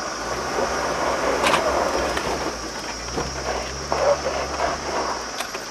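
Land Rover Discovery 2's Td5 five-cylinder turbodiesel pulling slowly up a steep dirt hill, a steady low rumble under load. Tyres crunch and scrabble over loose dirt and stones, with irregular crackles and knocks.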